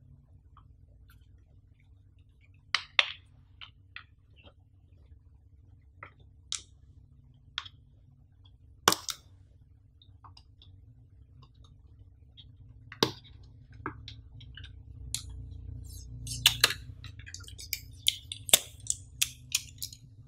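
Fingertips and fingernails tapping, scratching and handling a cardboard earphone box: scattered sharp clicks and taps that come thicker near the end, with a short rubbing rustle about two-thirds of the way through. A faint steady low hum sits underneath.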